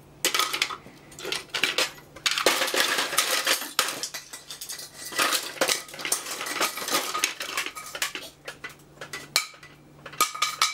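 Hard plastic pump parts (acetal impellers and housings, glass-filled plastic disks) clattering against one another and a stainless steel tray as they are handled and shuffled, in irregular bursts of clinks with a couple of short pauses. A faint steady hum runs underneath.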